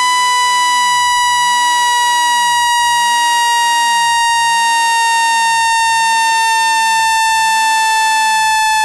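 Synthetic speaker-cleaning tone for pushing water and dust out of a phone speaker: a loud, steady, harsh electronic tone rich in overtones, its pitch sliding very slowly downward.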